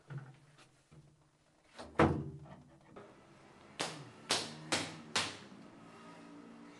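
A door slams shut about two seconds in, then four sharp taps follow about half a second apart.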